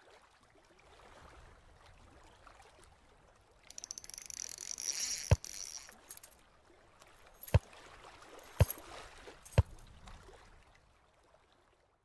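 Sound effects for an animated intro: a faint hiss, a high rattling swell about four seconds in, then four sharp clicks, the last three about a second apart.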